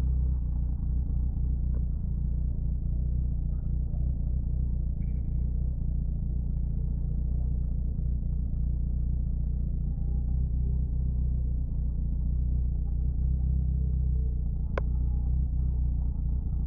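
Nissan SR20DET turbocharged 2.0-litre four-cylinder idling steadily at about 1,000 rpm, heard from inside the car's cabin. A single sharp click comes near the end.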